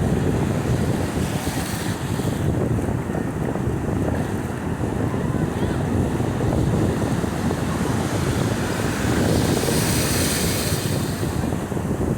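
Wind buffeting a phone microphone over the steady wash of ocean surf, with the hiss of breaking waves swelling up twice, once near the start and again near the end.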